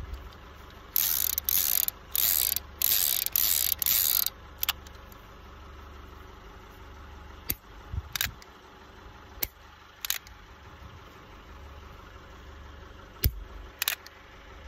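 Revolver cylinder spun with a ratcheting whir for about three seconds, then a series of single sharp clicks a second or more apart as the hammer is cocked and falls on empty chambers.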